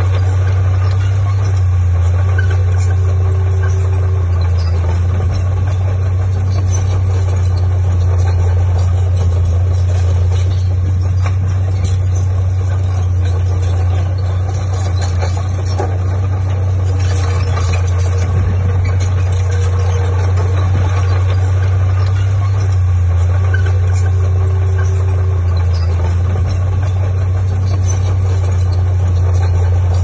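Diesel engine of heavy earthmoving machinery running steadily, a loud, even low hum with no change in speed.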